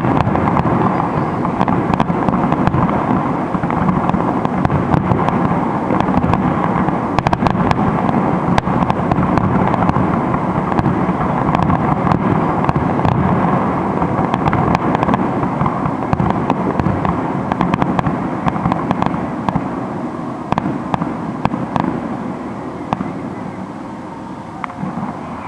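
Aerial fireworks shells bursting in a rapid volley, with overlapping bangs and crackling. The barrage thins and dies away in the last few seconds.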